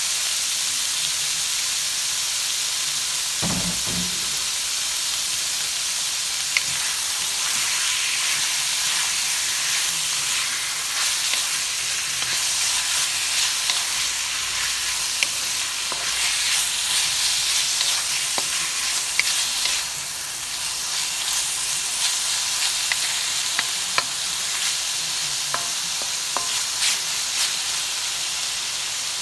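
Sliced beef and ginger sizzling in hot oil in a wok, stirred and turned with a wooden spatula: a steady frying hiss with scattered light clicks and scrapes of the spatula against the pan.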